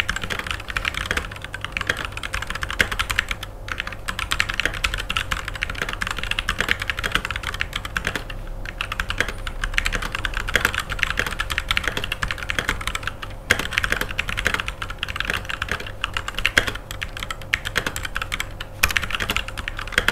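Fast, continuous typing on a Rexus Daxa M84 Ultimate 75% mechanical keyboard, dense key clicks with a few brief pauses. The reviewer rates its acoustics as just standard, with no added foam dampening.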